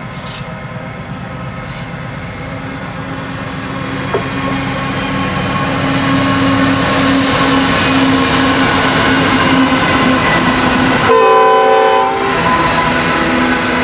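A freight train passing close by. Its Pacific National diesel locomotives run past with a steady engine drone, then the container wagons rumble and clatter over the rails. About eleven seconds in, the locomotive horn sounds once for just over a second.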